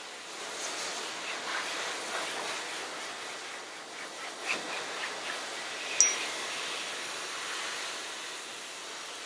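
High-velocity pet force dryer blowing air through its hose and nozzle into a wet dog's coat, a steady rushing hiss, to drive the water out before fluff drying. A single sharp click with a brief high squeak about six seconds in.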